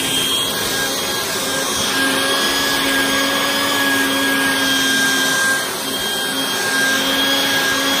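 Vacuum cleaner motor running steadily with a high whine, its brush nozzle rubbing through alpaca fleece to suck out grit; the sound dips briefly about two thirds of the way through.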